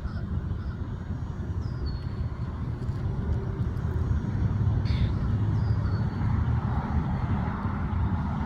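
Steady low rumble that swells a little partway through, with a few short high bird chirps over it.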